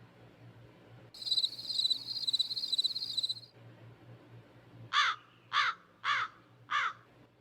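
A high insect trill for about two seconds, then a crow cawing four times at even intervals.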